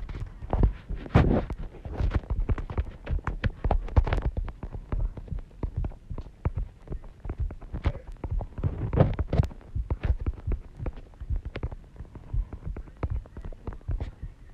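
Fingertips tapping on a phone's touchscreen keyboard while typing, heard as irregular short thumps and clicks a few times a second.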